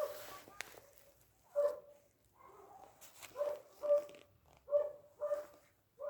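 A dog barking repeatedly, about eight short barks at irregular intervals.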